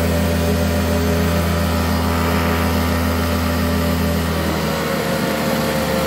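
Hoover Decade 80 upright vacuum cleaner running steadily with a low hum and vibration, which the owner puts down to brushroll bearings worn by carpet freshener powder. The lowest part of the hum weakens a little about four and a half seconds in.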